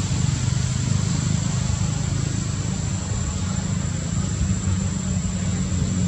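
An engine running steadily, like a motor vehicle idling, with a thin high steady tone above it.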